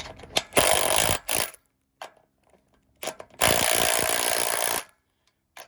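A 9/16 wrench tightening a nut onto the threaded stud of a boat-lift leveling cable: two bursts of rapid metal clicking, each a second or so long, with a short pause between them.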